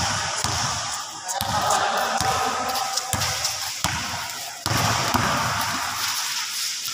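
Basketball bouncing on a concrete court as it is dribbled, with some sharp ball impacts, over music playing.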